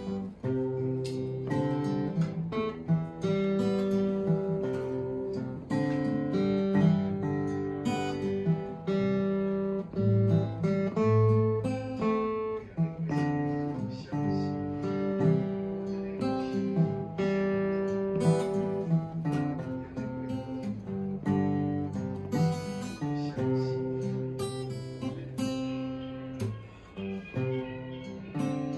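Acoustic guitar being played, picked notes and strummed chords in a steady tune.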